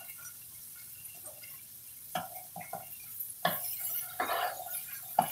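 Metal tongs knocking and scraping against a skillet, a handful of short clinks in the second half, as pan-fried chicken breasts are lifted out of the pan.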